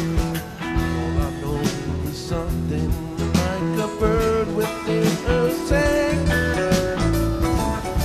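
Background music led by guitar, with held and sliding notes over a drum beat.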